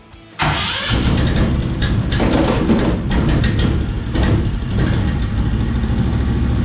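Predator small gasoline engine on a long-tail mud motor starting up about half a second in, then running steadily, restarted while its kill switch is being tested.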